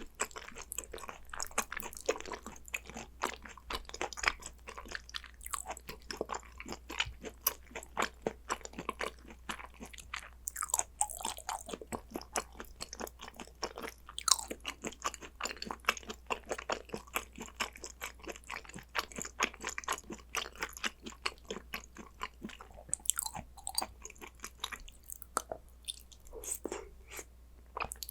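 Chewing and biting of spicy gochujang-dressed raw Korean beef (hanwoo yukhoe), an irregular run of many small clicks and smacks.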